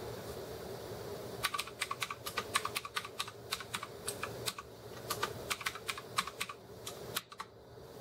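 Typing on a Redragon K553 mechanical keyboard with Outemu Blue clicky switches: a quick run of key clicks beginning about a second and a half in, a brief pause about halfway, then more keystrokes ending in a single press near the end.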